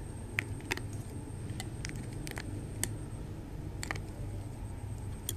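Scattered sharp clicks and ticks from handling a foam soap pump bottle over a bowl of glue, about ten at uneven intervals, over a steady low hum.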